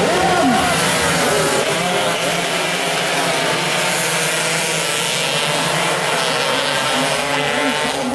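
A pack of 116 cc two-stroke underbone racing motorcycles passing at full throttle. Many engines buzz at once, their pitches overlapping and sweeping up and down as the bikes go by.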